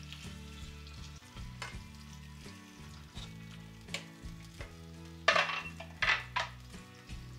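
Pineapple chunks and juice with onion sizzling gently in a frying pan while a utensil spreads them out, scraping against the pan now and then; the loudest scrapes come about five to six and a half seconds in.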